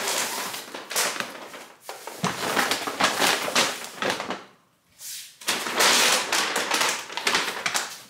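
Brown paper grocery bags rustling and crinkling in rapid bursts as groceries are handled and unpacked from them, with a brief pause about halfway through.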